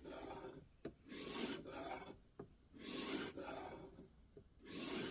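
A 1500-grit diamond sharpening plate rasping along the edge of an N690 steel knife blade held in a guided sharpening system's clamp, in even strokes about one a second, some louder than others. This is the five-swipes-per-side stage of the set.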